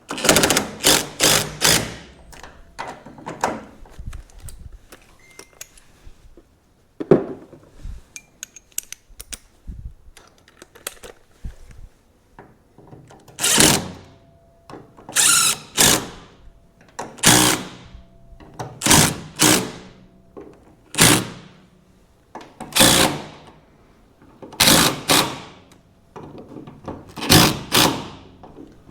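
Power driver running in short bursts to drive in door hinge bolts: a quick string of bursts at the start, then a steady series of half-second runs every couple of seconds. There is a single sharp knock in between.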